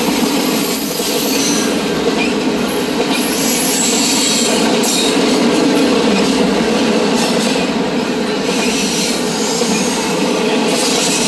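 Double-stack container well cars of a freight train rushing past, a loud steady rumble of steel wheels on rail, with brief high wheel squeals now and then.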